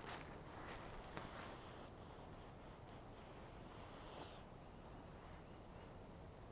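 A bird whistling high and thin: a long note, a quick run of short notes, then a longer note that stops about four and a half seconds in, followed by fainter short whistles.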